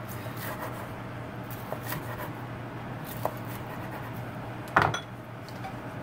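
Chef's knife cutting a breaded fried steak into strips on a wooden cutting board: faint crunching and scraping cuts, with one louder knock of the blade on the board a little before the end. A steady low hum runs underneath.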